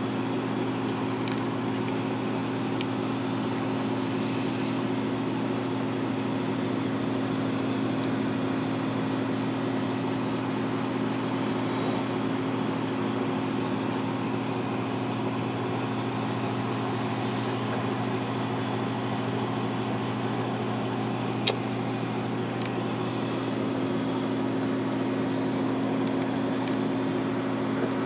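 Steady low electrical hum over a constant hiss from running reef-aquarium equipment, with one brief click about three-quarters of the way through.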